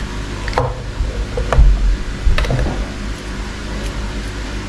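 Small clicks and taps from a Michael Kors MK8295 wristwatch and its plastic movement spacer being handled, with a dull low knock about a second and a half in, over a steady low hum.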